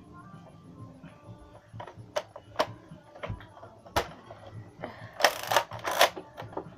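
Sharp plastic clicks and clatter from a Nerf blaster being handled: a few single clicks, then a short rattling burst about five seconds in.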